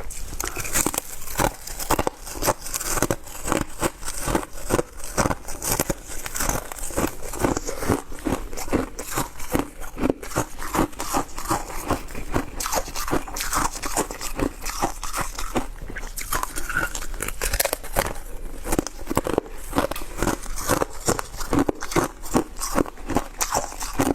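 Shaved ice being chewed close to the microphone: continuous crisp crunching, a few crunches a second.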